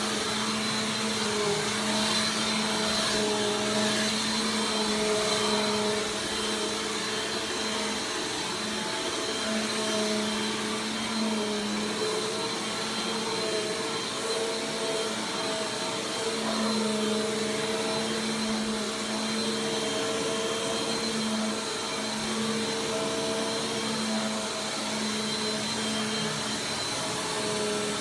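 Bissell PowerForce Compact Turbo 2690 vacuum cleaner running steadily: a motor hum and whine whose pitch wavers slightly now and then.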